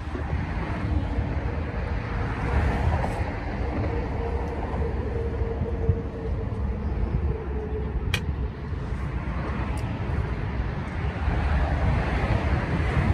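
Wind buffeting the microphone on a seashore, a steady noisy rumble, with a faint humming tone for a few seconds midway.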